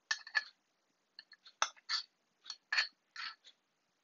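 Spoonfuls of granulated sugar pouring onto diced apples in a saucepan, heard as irregular clusters of short, crisp patters and clicks.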